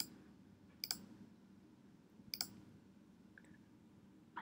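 Computer mouse clicking about three times, a second or more apart, each click a quick double tick of press and release. A faint steady hum runs underneath.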